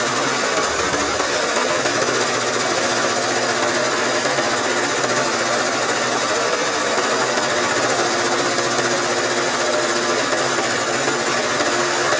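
Embroidery sewing machine running fast and steadily, its needle stitching thread leaves into cloth stretched in a hoop that is guided by hand.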